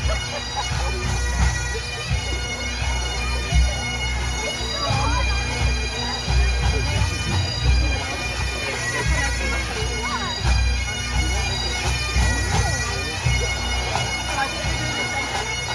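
Massed Highland bagpipes from several pipe bands playing together, the drones holding a steady chord beneath the moving chanter notes.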